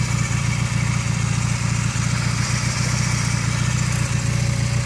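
A 1996 Honda CB250's air-cooled parallel-twin engine idling steadily, with an even low pulse and no revving.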